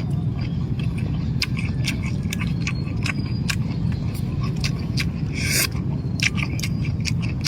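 Eating at a meal: a few sharp clicks and knocks a second, with one short scrape about five and a half seconds in, over a steady low rumble.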